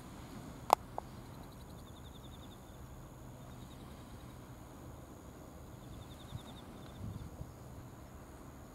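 Quiet outdoor ambience: a low distant rumble, a faint steady high whine, and short pulsed trills typical of insects. A sharp click comes just under a second in, with a smaller one right after.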